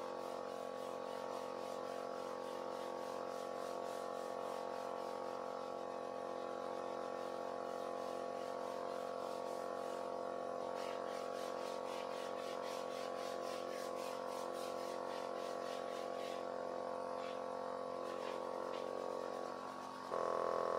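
Electric vacuum pump of a Virutex SVE670 vacuum clamp running with a steady hum, while sandpaper on a hand sanding block is rubbed in strokes over the edge of a wooden board.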